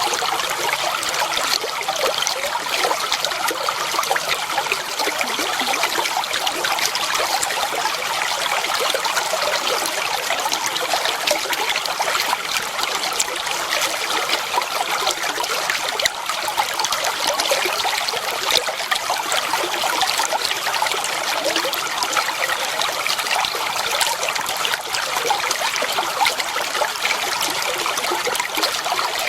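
Clear flowing water trickling and babbling steadily, a bright, splashy sound with little low rumble.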